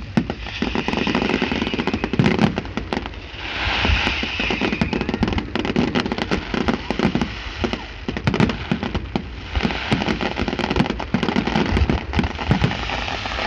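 Fireworks going off: a dense run of crackling pops and bangs, with a brief hiss about four seconds in.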